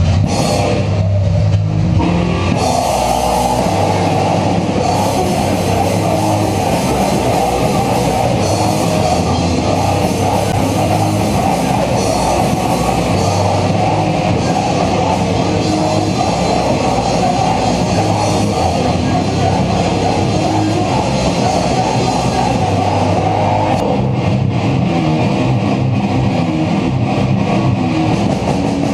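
Hardcore/thrash metal band playing live: distorted electric guitars over a drum kit, loud, the full band coming in about two seconds in.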